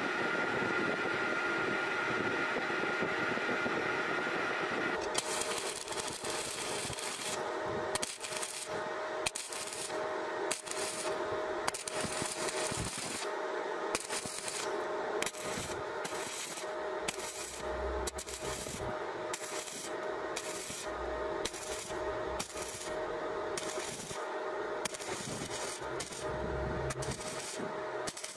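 Stick (SMAW) welding arc crackling and sizzling on 1.5 mm thin sheet steel. A steady hum comes first; from about five seconds in the arc crackles, breaking off and restriking in short bursts of around a second each.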